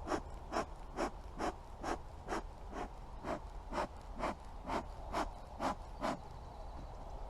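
Bee smoker bellows being pumped: a steady run of short puffs of air, about two a second, ending a little after six seconds in.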